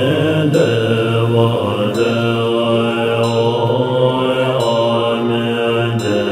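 Tibetan Buddhist mantra chanting: a short melodic phrase repeated over and over, about once every second and a half, over a steady low drone.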